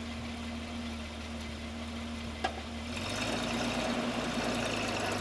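1943 Dodge WC52 weapons carrier's flathead straight-six engine idling steadily. A single sharp click about halfway through, then the engine note changes and grows louder.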